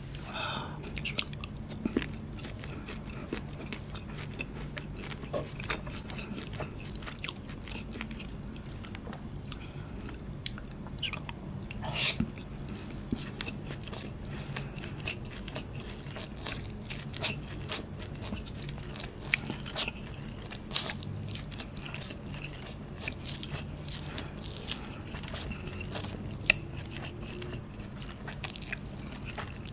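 A person eating noodles with their hands close to the microphone: chewing, with many short, sharp mouth clicks and smacks scattered irregularly throughout.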